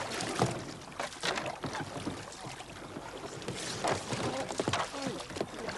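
Several kayak paddles dipping and splashing in the water with irregular strokes as a group of kayakers paddles off.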